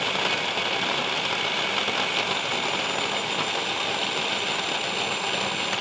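Electric blender running steadily on high speed, its motor whining as it blends sun-dried tomatoes, oil and spices into a paste.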